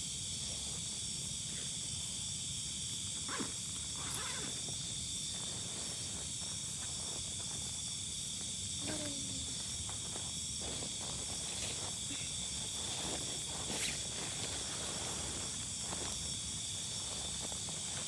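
Chorus of night insects, a steady high-pitched trilling drone held at several pitches, over a low steady rumble, with a few faint scattered clicks.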